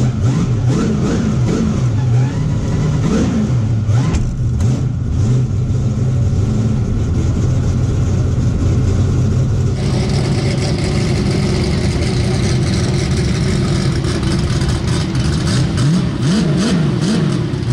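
Drag race car's engine running at a high idle with repeated throttle blips, the revs rising and falling over and over. It is heard first inside the caged cabin and, from about ten seconds in, from outside the car.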